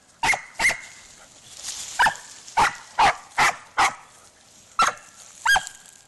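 Spanish water dog barking, about nine short, sharp barks, singly and in quick pairs, eager for a stick held up to be thrown into the river.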